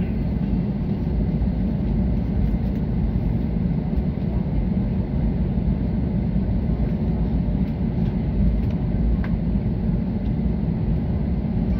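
Cabin noise of an Airbus A320 taxiing: a steady low rumble from its CFM56-5B engines and the aircraft rolling along the taxiway.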